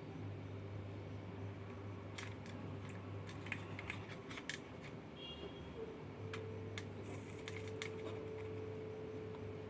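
Scattered light clicks and taps of small hand tools working on the speaker's charging-socket wiring, over a steady low electrical hum. A faint steady tone joins about six seconds in.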